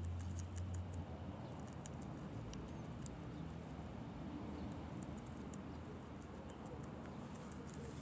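Guinea pig chewing and nibbling a broccoli leaf: an irregular run of small crunching clicks. A low rumble in the first second.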